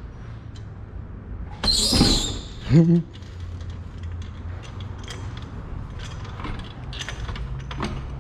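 A loud high squeal about two seconds in, then a short creak that rises in pitch, followed by scattered light clicks and knocks over a low hum: metal creaking as the car is lowered on its jack.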